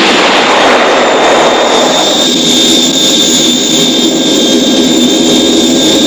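A loud, steady engine roar with an even, high whine over it; a lower engine hum joins about two seconds in.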